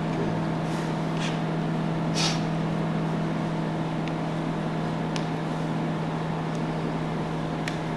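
A steady mechanical hum, as from a motor or appliance running, with a few faint soft rustles and ticks, the strongest about two seconds in.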